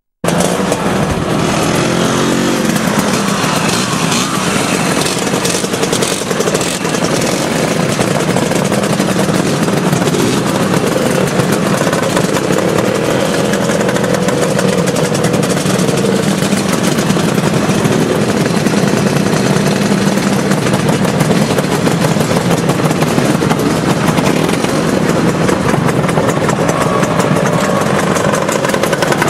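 Several motor scooter engines running together, idling steadily, with now and then one revving up and dropping back.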